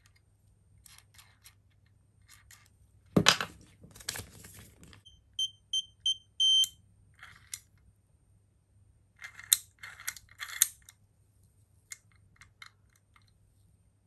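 Electronic cabinet lock beeping: four short high beeps and then one longer beep, midway. Around it, knocks and clatter of metal parts and a screwdriver handled on a wooden desk, the loudest a sharp knock about three seconds in.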